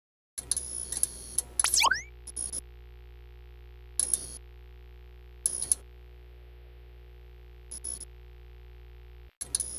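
Sci-fi computer-interface sound effects: a steady electronic hum with short bursts of high beeps and clicks every second or two, and quick whooshing pitch sweeps about two seconds in. The hum cuts off shortly before the end.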